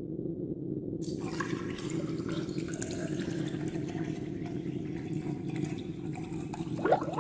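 Steady rushing road and wind noise from a moving vehicle, with a low hum underneath. It turns brighter and hissier about a second in.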